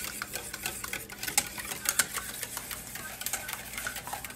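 Wire whisk beating eggs in a stainless steel bowl, its wires clicking and scraping against the metal in quick, uneven strokes.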